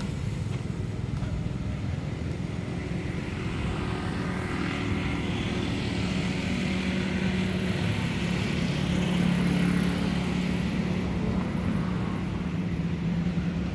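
Steady engine drone with a low hum that grows louder toward the middle and eases off near the end.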